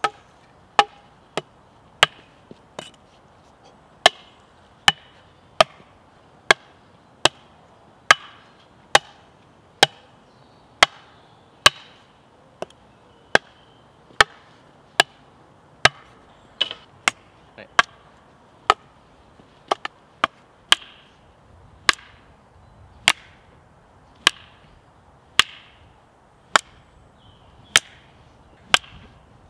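A baseball bat and a long wooden stick struck together over and over: about thirty-four sharp clacks, a little more than one a second, each with a short ring.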